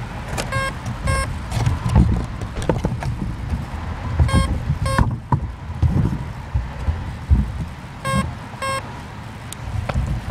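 Pairs of short electronic beeps, repeating about every three and a half seconds, over gusty wind buffeting the microphone. The beeps fit the idle, ready-to-fly signal of an electric RC helicopter's electronics.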